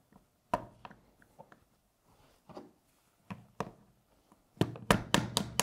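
Handling noise from airsoft rifle parts being fitted together: scattered light clicks and knocks, then a quick run of clicks and taps near the end.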